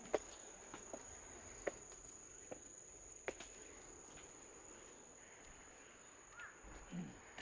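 Crickets trilling steadily at a high pitch, with light clicks of footsteps in the first half and a short pitched sound near the end.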